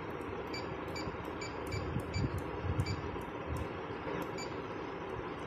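Janome Secio 8200 embroidery machine's control-panel key beeping at each press: about ten short high beeps, roughly two a second, stopping about four seconds in, as a stitch setting is stepped down to zero. A few soft low knocks come midway.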